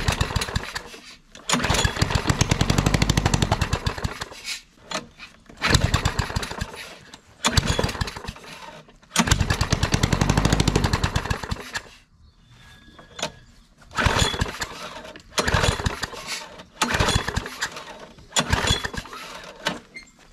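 Small Briggs & Stratton push-mower engine, running with no muffler, picks up in bursts of one to three seconds and sags nearly to a stall between them, about nine times, rising and falling in pitch. The uneven running goes with the dirt found in the fuel sediment bowl, which the owner gives as the reason it doesn't want to run.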